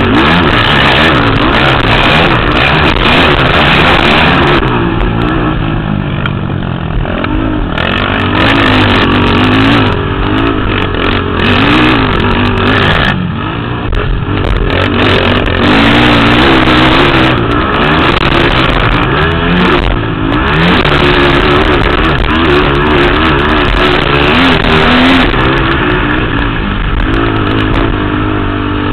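Motocross racing quads (ATVs) running hard on the track, their engines revving with the pitch repeatedly rising and falling as the throttle opens and closes and gears change.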